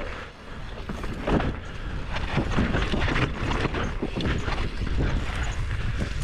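Rocky Mountain Altitude mountain bike descending dusty, rocky singletrack. Tyres rumble over dirt and rock, the bike gives many short irregular rattles and knocks, and wind buffets the microphone.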